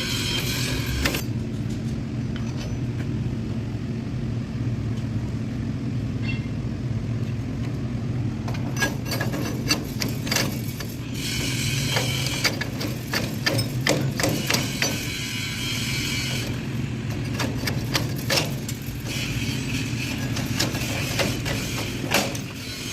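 Steel slats of a CNC laser cutter's table being cleaned of slag: repeated metal clanks and knocks, with several spells of scraping, over a steady low machine hum.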